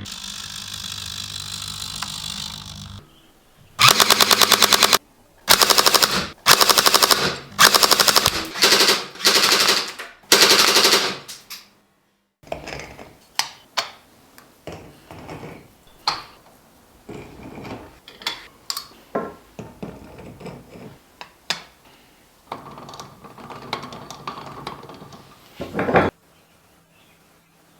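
The RC truck's roof-mounted machine gun turret firing about seven short bursts of rapid automatic fire, each under a second long. A steady mechanical hum comes before the bursts, and scattered clicks and knocks follow them.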